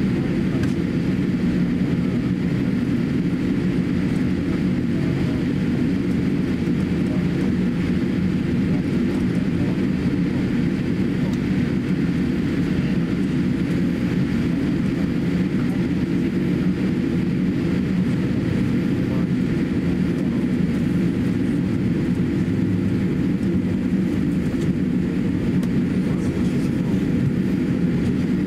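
Steady cabin noise inside a Boeing 787-8 taxiing after landing: a low, even hum from the engines at taxi power, with a fainter hiss above it.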